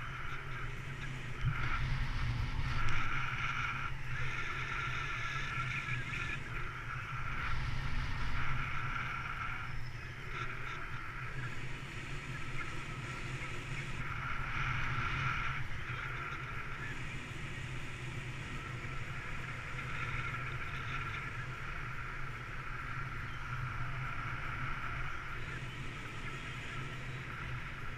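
Airflow of paraglider flight buffeting the microphone: a steady low rumble with a hissing band above it that swells and fades every few seconds.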